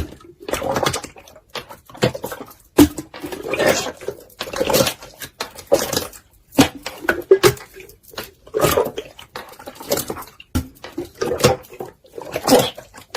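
Clear slime being squeezed and pressed by hand, giving irregular wet squelches and sharp sticky pops and clicks.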